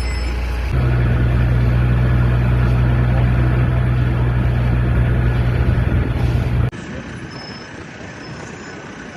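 Safari bus engine running, heard from inside the bus: a steady low hum that grows louder about a second in, then drops sharply to a quieter rumble about two-thirds of the way through.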